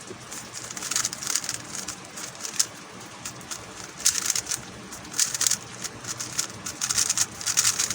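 MoYu Huameng YS3M MagLev 3x3 speedcube being turned rapidly during a solve, with fast bursts of plastic clicking and clacking that grow busier in the second half. The cube is running dry, without lube.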